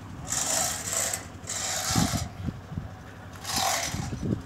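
Footsteps crunching on loose gravel and dirt, one gritty scrape about every second and a half, with a few dull knocks near the end.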